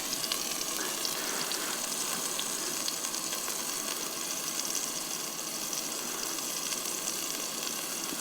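Scallops searing in a hot cast iron pan with garlic: a steady sizzle with a few faint ticks.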